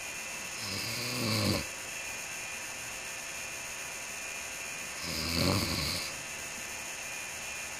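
A sleeping person snoring twice, each snore about a second long and ending abruptly, about four seconds apart, over a steady hiss. The snoring was recorded to check for sleep apnea, which the sleeper concluded he did not have.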